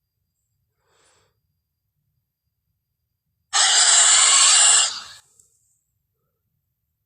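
Spinosaurus creature sound effect: after a faint breath about a second in, a loud, breathy, unpitched exhale starts sharply, holds for about a second and a half, then tails off.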